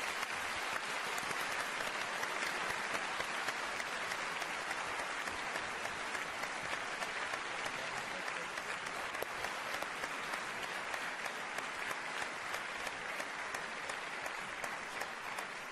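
A large audience applauding: dense, sustained clapping with individual sharp claps standing out.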